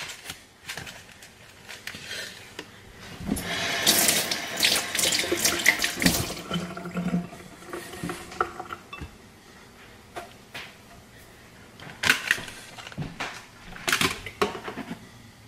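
Water running from a kitchen tap for about four seconds, followed by a few sharp knocks of handling.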